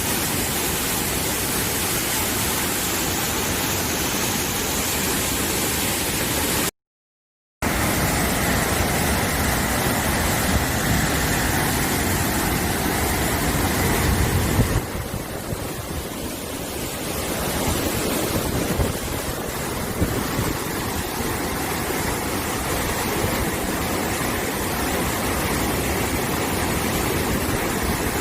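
Mountain valley stream rushing over rocks: a loud, steady wash of water. It cuts out completely for about a second near a quarter of the way through, then carries on.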